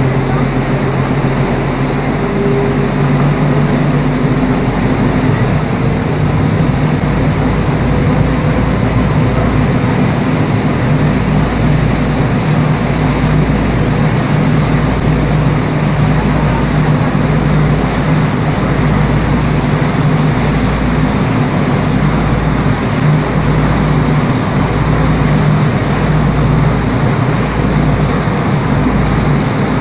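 An engine running steadily: a continuous drone with a pulsing low rumble underneath.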